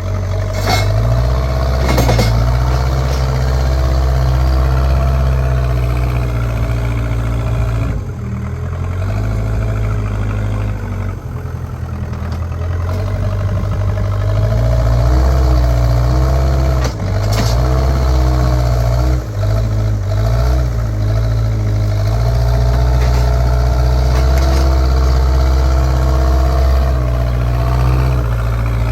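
JCB backhoe loader's diesel engine running under changing load, its deep note stepping up and down as it works and dropping back for a few seconds about a third of the way in. A few sharp knocks come near the start and again about two-thirds through.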